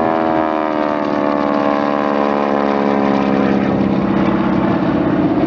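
Piston engine of a World War II advanced-trainer propeller airplane on its landing approach, throttled back and slowed down. Its engine note dips slightly in pitch in the first second, then holds steady.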